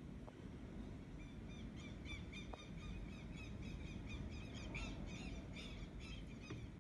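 A bird calling in quick, evenly repeated chirps, about four a second, starting about a second in and stopping near the end, over a steady low rumble of wind.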